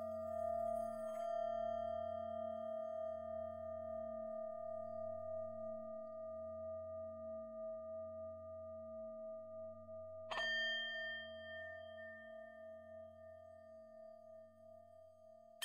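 Meditation music of ringing, singing-bowl-like tones: a long sustained ring over a low pulsing drone, slowly fading, then a new higher bell-like strike about ten seconds in.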